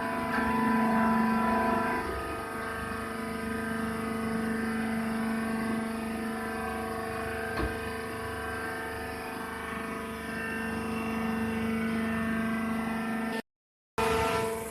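Wood shaving baler machine running: a steady mechanical hum of one fixed pitch. A single click comes about halfway through, and the sound cuts out briefly near the end.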